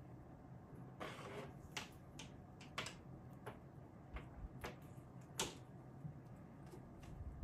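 Faint scratching about a second in, then scattered sharp clicks and taps. These are cats' claws and paws on a carpeted cat tree with sisal posts as they climb and play on it.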